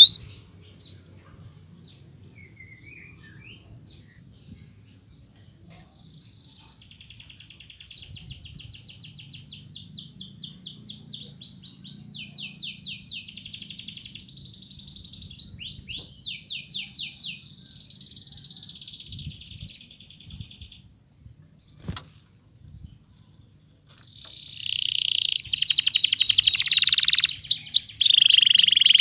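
Domestic canary singing in bouts of rapid trills and fast repeated notes. After a few near-quiet seconds with faint chirps, a long bout runs until about two-thirds of the way through. A short pause and a single click follow, then a louder, denser bout starts near the end.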